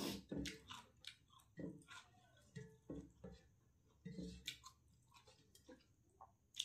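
A person chewing a mouthful of rice and chicken, in irregular short soft bursts with a few light clicks.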